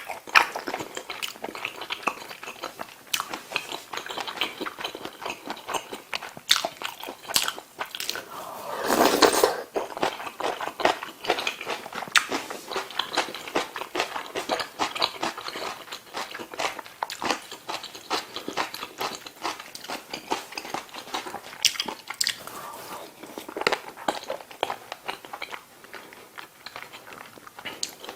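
Close-miked eating sounds: a person chewing kimchi stew with noodles and rice, with a steady run of small mouth clicks and smacks. One louder, longer sound of about a second comes about nine seconds in.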